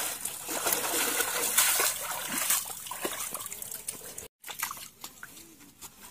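Water splashing and sloshing as a person wades through shallow river water. It cuts off abruptly about four seconds in, and a much quieter stretch with a few faint clicks follows.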